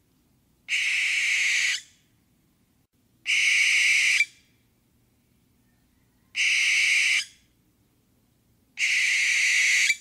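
Barn owl screeching: four long, harsh screeches of about a second each, spaced two to three seconds apart.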